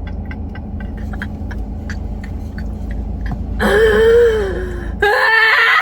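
Steady low rumble, like a car cabin's engine and road noise, with a quick regular ticking of about four ticks a second. About three and a half seconds in, a person lets out a long, loud moan that wavers in pitch, then a second shorter vocal sound as the rumble cuts off abruptly.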